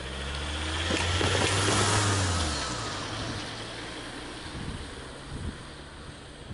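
A pair of ST40 diesel locomotives hauling a freight train, their engines running with a deep drone that drops back a little under three seconds in. A rush of running noise swells and then fades around it.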